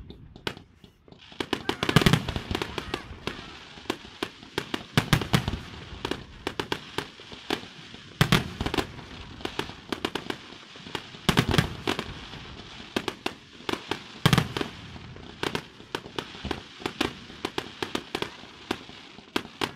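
Fireworks display: aerial shells bursting with a heavy boom about every three seconds, and rapid crackling reports between them.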